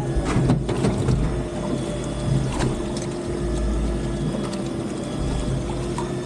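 Fishing reel being cranked, its gears and ratchet clicking steadily, over the steady hum of the boat's engine.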